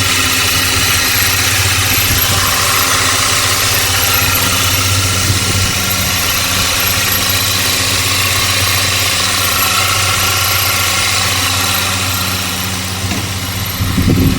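2016 Volkswagen Tiguan's 1.4-litre turbocharged petrol four-cylinder engine idling steadily, with a brief louder burst near the end.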